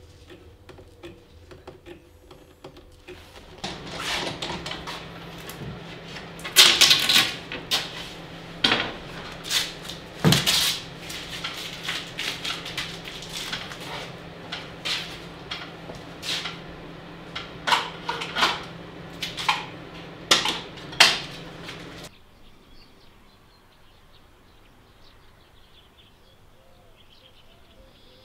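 Workshop clatter: a run of sharp knocks and clacks, as of wooden parts and tools being handled, over a steady low hum, cutting off suddenly about 22 seconds in.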